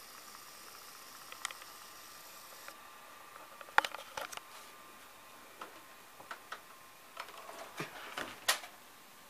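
Handling noise from a hand-held camera being moved: scattered faint clicks and knocks starting about four seconds in, the loudest near the start of the movement and again near the end, over a faint steady hum.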